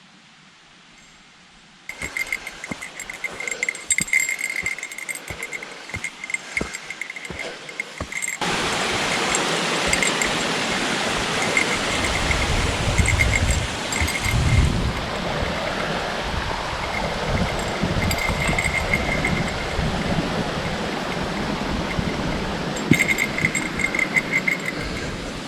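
Outdoor trail sounds: footsteps and clicks over a steady pulsing insect chirp, then, about eight seconds in, a loud steady rushing noise with low rumbling gusts, like wind on the microphone, under which the insects keep chirping.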